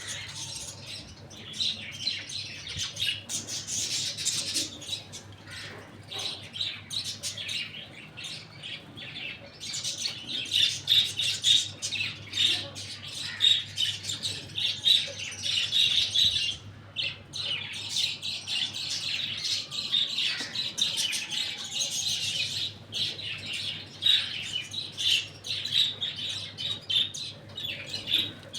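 A crowd of small birds chirping and squawking in a continuous dense, high chatter, busier and louder from about ten seconds in, over a faint steady low hum.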